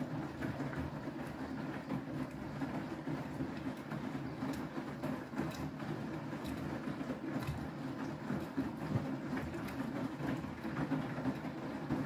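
Beko WTK104121W front-loading washing machine in its wash cycle, its drum turning a wet load of laundry: a steady rumble with faint clicks scattered through it.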